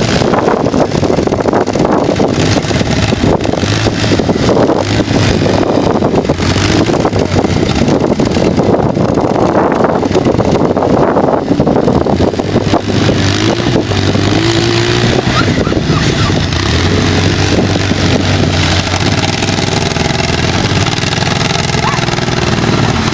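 Off-road buggy engines running over rough ground, with heavy rumble and knocking on the microphone in the first half. From about halfway a steady engine hum comes through more plainly.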